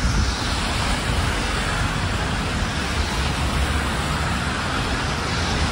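Steady road-traffic noise: a low rumble with an even hiss over it and no breaks.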